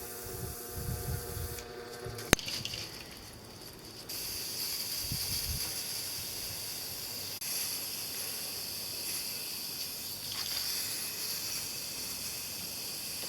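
Aerosol can of WD-40 spraying onto a rusty bicycle chain: a steady high hiss that starts abruptly about four seconds in, after a sharp click and some soft handling knocks.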